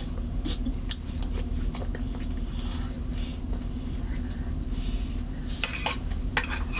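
A toddler eating ramen noodles with her hands: soft, irregular wet mouth smacks, chewing and slurping clicks over a steady low background hum.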